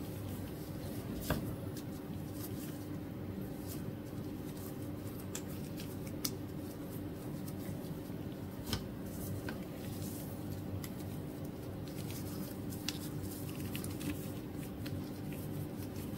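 Gloved hands handling bracelet straps: soft rustling with a few sharp clicks and taps, the loudest about a second in and near nine seconds, over a steady low hum.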